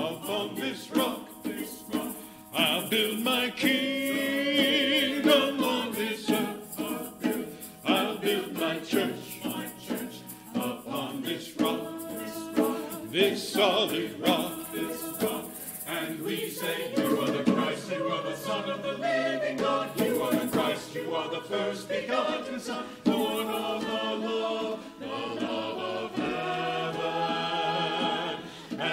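Mixed church choir singing an anthem, with hand percussion shaking a steady rhythm under the voices.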